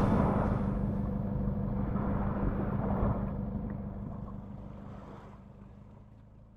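Jet ski engine running steadily with some water and wind noise, fading out gradually over several seconds.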